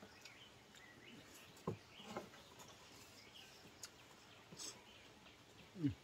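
Quiet rural ambience with faint bird chirps and a few short, soft knocks, the loudest just before the end.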